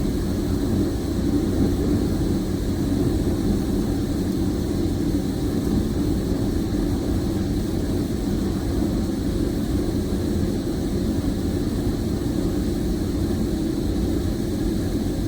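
A steady low rumble, even in level throughout, with no clear rhythm or pitch.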